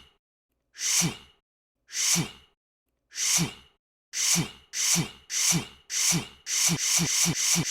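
The same short breathy vocal sound, each with a falling pitch, repeated over and over: about once a second at first, then faster and faster, about three a second near the end.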